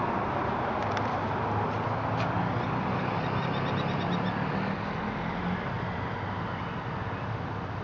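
Steady outdoor background noise over a low, even mechanical hum, with a few faint clicks and a brief run of quick, faint high chirps about three seconds in.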